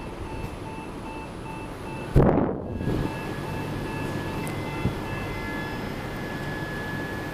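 Electronic beeping, about three short beeps a second at two pitches at once, over a steady hum. A loud thump comes about two seconds in, and after it a faint steady high tone sets in.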